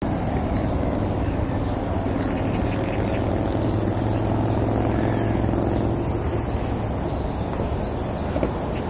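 Steady vehicle noise with a low, even hum that fades away after about six or seven seconds.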